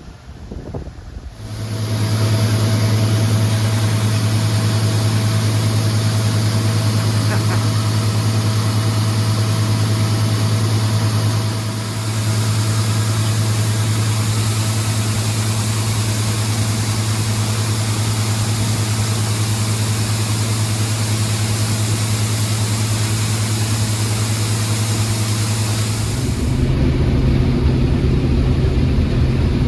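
Combine harvester running: a steady low drone with hiss over it, starting suddenly about a second and a half in, and changing tone near the end as the hiss drops away.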